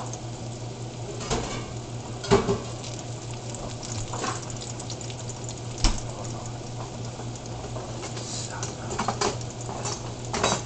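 Breaded tilapia fillets pan-frying in hot fat, a steady sizzle and crackle with several sharper pops scattered through it.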